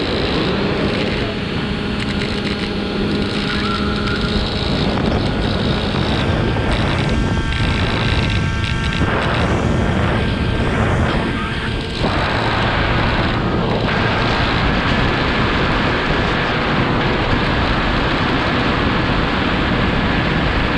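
Multirotor drone's electric motors and propellers running, with wind rushing over its onboard microphone; a steady hum whose pitch shifts a few times as it flies.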